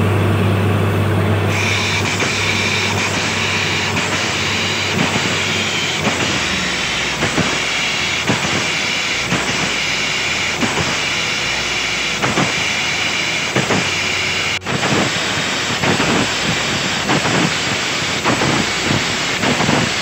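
Borewell drilling rig running hard with a steady hiss of compressed air and repeated irregular knocks, as the crew works to free a drill bit stuck in the bore.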